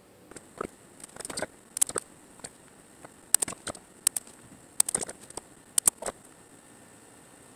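Scattered light clicks and ticks in small irregular clusters, handling noise from the Crosman 2400 KT air rifle as it is settled on its rest and aimed.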